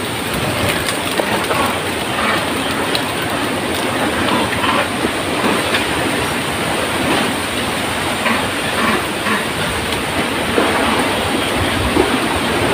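Forest insects droning, a steady high-pitched whine over a dense hiss.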